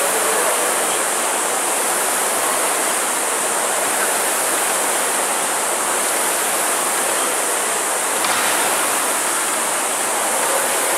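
Air-braked flywheels of several Concept2 indoor rowing machines whooshing together under hard rowing, merging into a loud, steady rushing noise.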